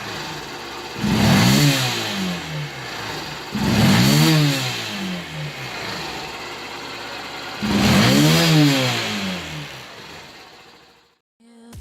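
Honda 125 motorcycle's single-cylinder engine idling and revved three times with quick throttle blips, each rise in pitch falling back to idle. The sound cuts off suddenly near the end.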